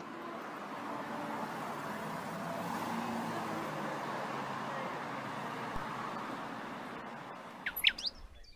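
A steady rushing background noise that swells to a peak a few seconds in and then fades away, followed by a few short, rising bird chirps near the end.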